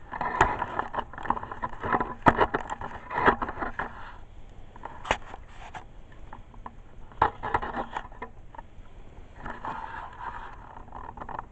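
Scraping and knocking in three spells, with sharp clicks among them.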